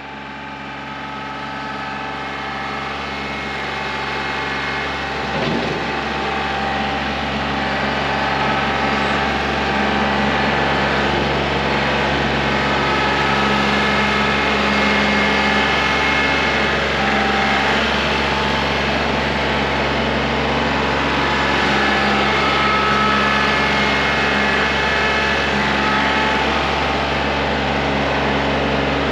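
Kubota L3901 tractor's three-cylinder diesel engine running steadily, fading up over the first several seconds and then holding level.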